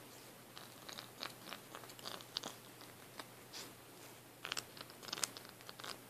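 Sphynx cats grooming and play-biting each other at close range: irregular wet licking and nibbling clicks, coming thickest about four and a half to five and a half seconds in.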